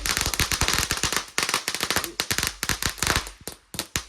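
A string of firecrackers going off: a rapid, irregular run of sharp cracks, many a second, with a couple of brief lulls.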